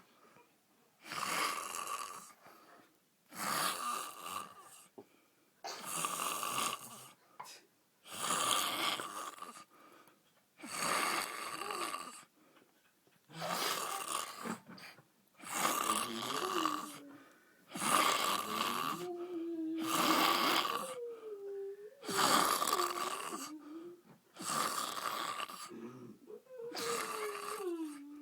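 A man snoring loudly in his sleep, a snore roughly every two and a half seconds, about a dozen in all. From about halfway on, several snores carry a wavering pitched tone.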